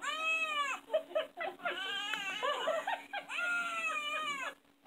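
Dog head-tilt sound clip played through a small Bluetooth speaker: high, whiny, whimper-like cries that rise and then fall in pitch, two longer ones with short choppy squeaks between them.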